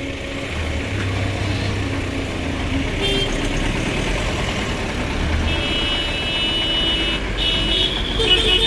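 Electric multiple-unit train's horn sounding in two long, high blasts, about five and a half and seven and a half seconds in, over a steady low rumble.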